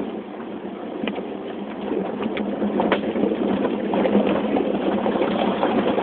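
Toyota 4Runner crawling slowly over a rough, rocky dirt trail in four-wheel low, heard from inside the cab: a steady engine drone with scattered knocks and rattles, getting louder about two seconds in.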